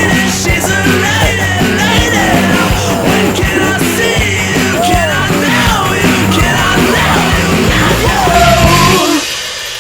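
Rock music with yelled, shouted vocals over a driving bass and drums; the song ends abruptly about nine seconds in, leaving a ringing tail that dies away.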